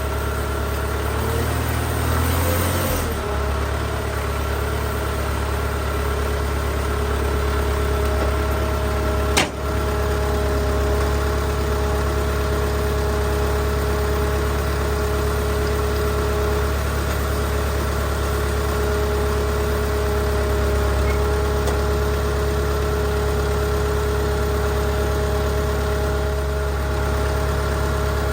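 Case 580CK backhoe's Case 188 four-cylinder diesel engine running steadily at a constant speed. A single sharp knock sounds about nine seconds in.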